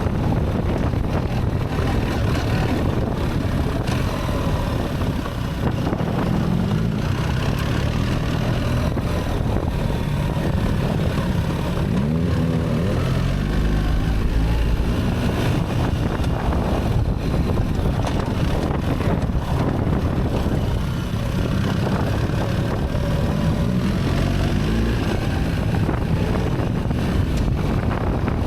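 BMW R 1300 GS Adventure's boxer-twin engine running under way, its pitch rising and falling several times as the Automated Shift Assist changes gear, with wind noise on the microphone.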